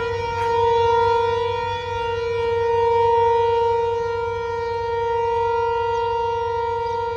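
Diesel locomotive air horn of a passenger express sounding one long, steady blast on a single note.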